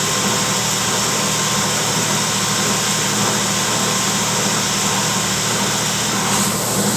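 Engine running steadily at constant speed: a loud, even drone with a faint steady whine on top.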